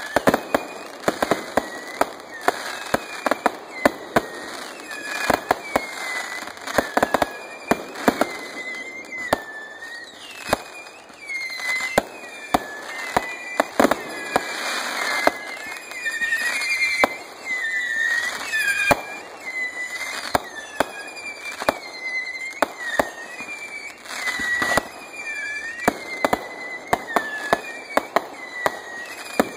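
Aerial fireworks display: a rapid, irregular string of sharp bangs from bursting shells, often several a second. From about ten seconds in, short whistling glides sound among the bangs.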